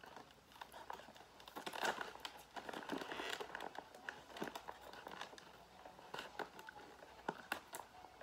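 Tape being picked and peeled off a figure's plastic packaging, with crinkling of the plastic: irregular crackles and ticks, thickest about two to three seconds in, then sparser.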